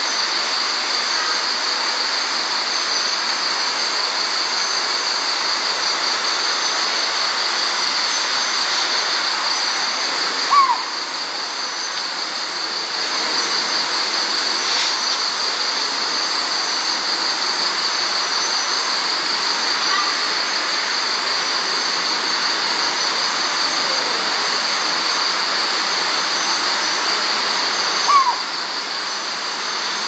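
Collared scops owl giving a single short, downward-inflected call twice, about 17 seconds apart, over a steady night chorus of insects with a continuous high ringing hiss.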